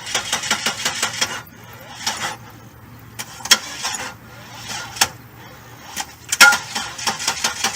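Car starter motor cranking the engine slowly and laboriously in a couple of attempts, with clicks between them, without the engine catching: the sign of a weak, run-down battery that needs a jump.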